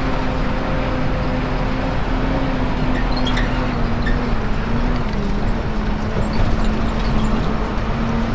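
Heavy truck's diesel engine running with a steady hum and a rumbling noise; the hum's pitch sags slightly about five seconds in.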